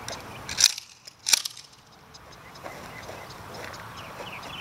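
Two sharp, loud cracks less than a second apart, in the first second and a half, followed by a much quieter background.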